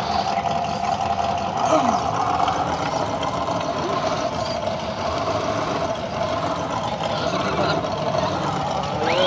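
Radio-controlled offroad car running, its electric motor and gears giving a steady whine over rough running noise.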